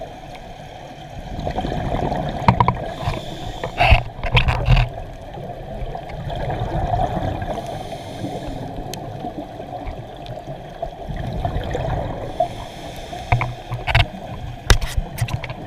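Scuba regulator breathing and exhaled bubbles heard underwater through a camera housing: slow swells of bubbling and gurgling every few seconds, with a few sharp clicks and knocks.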